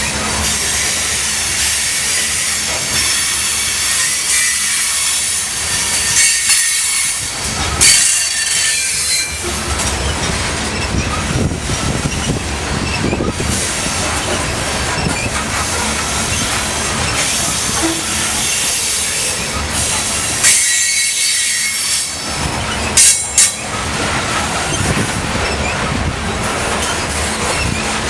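Loaded coal hopper cars of a long freight train rolling past, steel wheels rumbling over the rail with high-pitched flange squeal that comes and goes. There are sharp knocks about eight seconds in and a quick pair about twenty-three seconds in.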